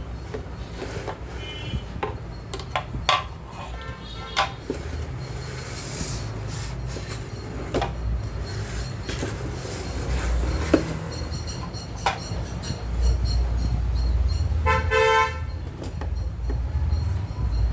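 Steady low rumble with scattered clicks and knocks, and a short horn-like toot about fifteen seconds in.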